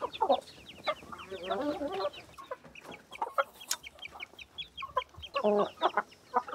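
A farmyard flock of chickens and chicks clucking and cheeping as they are fed, with a steady run of short high cheeps and a few louder clucks.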